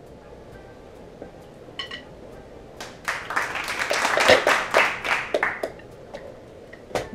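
Wooden drumsticks clicking in a fast, dense flurry of sharp clacks lasting about two and a half seconds, starting about three seconds in. A few single clicks come before it and one after, near the end.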